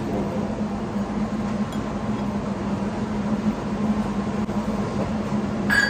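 A steady, even machine hum with a hiss underneath.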